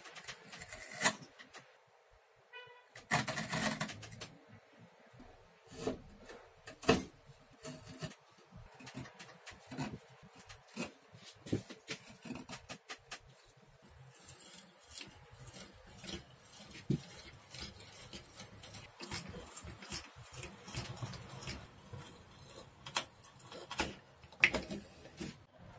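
Hand chisel paring a wooden saw-handle blank: a run of irregular short scraping cuts and sharp snicks as thin shavings are sliced off the curve.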